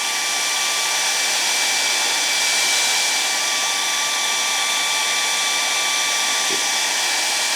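Handheld hair dryer running steadily on a boot, a constant fan hiss with a faint steady whine, heating the leather so the boot grease melts in.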